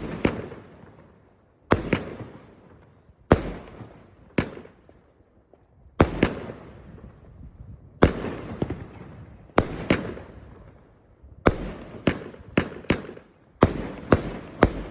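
WECO Firefly fireworks going off: a series of sharp bangs, each followed by a fading crackle, coming every second or two and quickening toward the end.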